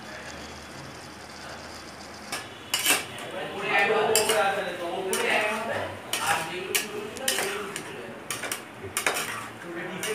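Flat steel spatula scraping and clanking against the side and bottom of a metal pot as a thick sauce is stirred, in quick irregular strokes with some ringing scrapes. The first couple of seconds hold only a steady low hiss before the stirring starts.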